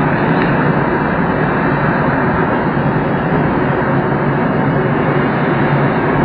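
Steady rush of air streaming over a glider's canopy, heard from inside the cockpit in flight, with no engine.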